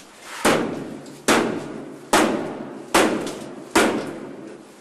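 Hand-held two-handled battering ram striking a wooden apartment door five times, a little under a second apart, each blow a heavy bang that dies away before the next.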